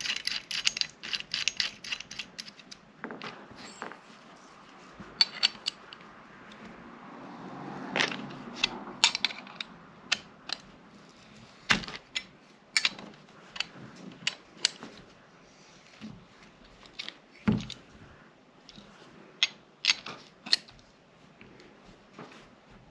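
Metal clicks and knocks of a handgun slide being handled and fitted into a sight pusher tool: a quick run of clicks at the start, then scattered single clicks and taps, with a brief scrape partway through.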